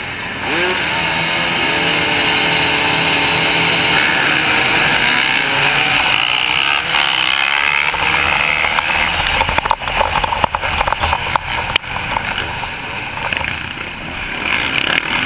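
Motocross bike engines, heard from on board one bike: a rev rises as the pack launches off the start line, then the engine is held at high revs under full throttle as the bikes race down the straight. A run of sharp knocks and clatter comes about two-thirds of the way through.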